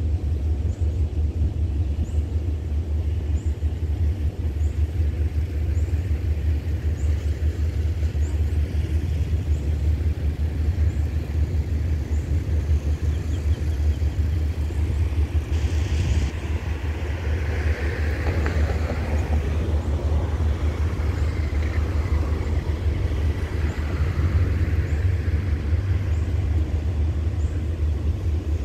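Diesel passenger train standing at a station with its engines idling: a steady low rumble.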